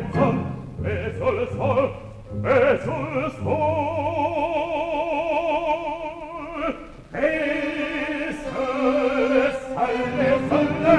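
Operatic bass voice singing an aria, with short phrases and then a long held note with wide vibrato in the middle, over low instrumental accompaniment.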